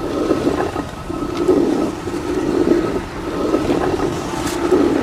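Hand-turned stone quern grinding wheat: the upper millstone grates against the lower one in a rough rumble that swells about once a second with each turn.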